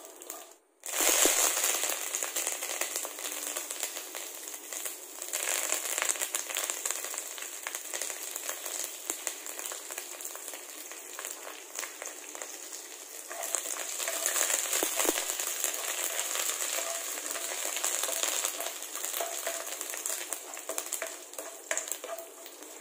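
Mustard seeds, fenugreek and curry leaves frying in hot oil in a pan: a steady sizzle full of small crackles. It drops out briefly near the start, comes back loud about a second in, and swells again in the second half.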